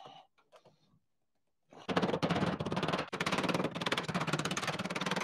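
A fast, even metallic rattle from a hand seamer working the seam of a steel standing-seam panel. It starts about two seconds in and runs on, as the seam is being turned over toward a double fold.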